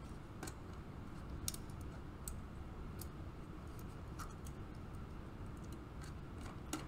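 Faint, scattered clicks and scrapes of a small screwdriver and wire ends at the screw terminals of a panel-mount indicator light as a jumper wire is fastened in, over a low steady hum.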